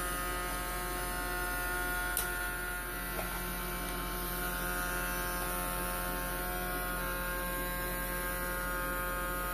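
Steady electrical hum with several steady whining tones from a homemade 8-volt motor-driven generator circuit running, with a faint click about two seconds in.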